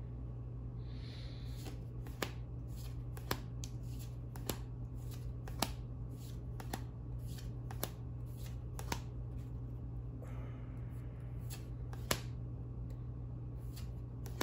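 Trading cards from a Dragon Ball Super Card Game booster pack being handled one by one, with a sharp card snap about once a second, over a steady low hum.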